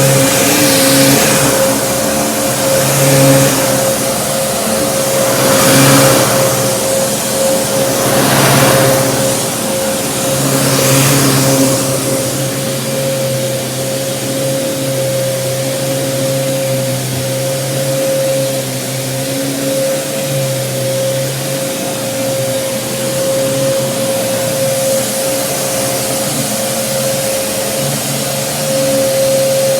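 Kenmore Progressive upright vacuum cleaner running, with a steady whine over its motor hum. A rushing air sound swells and fades several times in the first twelve seconds, then the running settles and stays steady.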